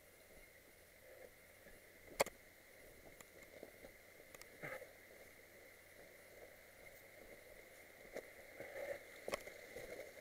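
Faint footsteps and rustling on a stony, grassy mountain slope, with one sharp click about two seconds in and a few softer knocks later.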